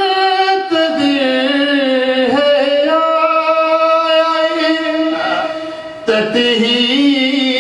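A man's solo voice chanting an Urdu devotional poem (a manqabat in praise of Fatima) in long, held melodic notes with slow turns in pitch. No instruments can be heard. There is a short break for breath about six seconds in.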